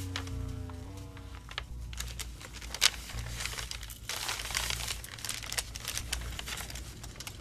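A large brown paper bag being handled, crinkling and rustling with many sharp crackles.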